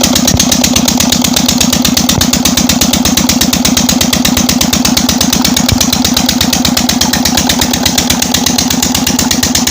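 20 hp Peter diesel engine running steadily, with an even, rapid beat and a steady hum, its injector nozzle freshly repaired.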